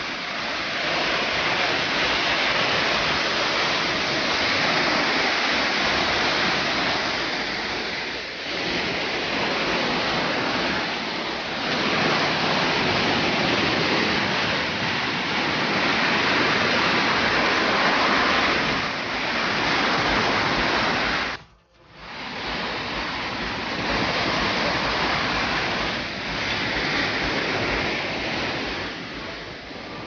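Waterfall: a steady rush of water cascading over mossy rocks, cutting out sharply for a moment about two-thirds of the way through.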